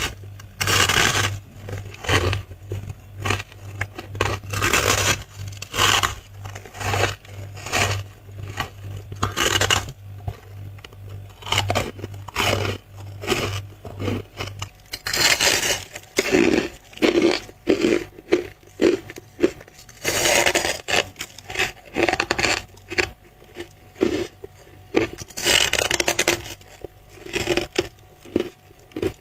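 Close-miked biting and chewing of squeaky white freezer frost, with crunchy, scraping bites about once a second. A low steady hum sits underneath and stops about halfway through.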